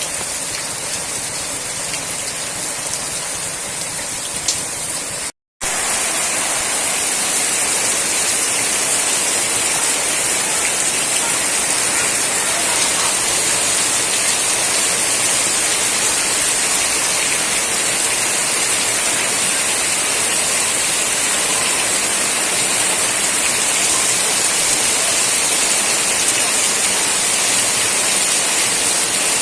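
Heavy rain falling steadily, a dense, even hiss. It cuts out for an instant about five seconds in, then carries on slightly louder.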